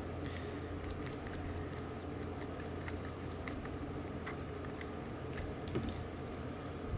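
Scattered light clicks and taps of small fishing-reel parts and tools being handled during disassembly, over a steady low hum.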